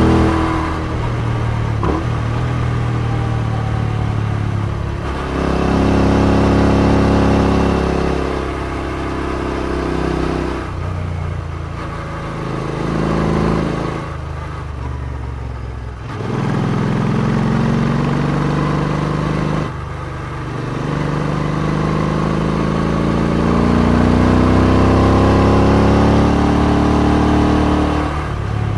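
Royal Enfield Interceptor 650's parallel-twin engine, breathing through aftermarket exhausts, pulling up through the revs and falling off again several times as the rider works the throttle and gears. It ends in a long steady climb in pitch over the last several seconds.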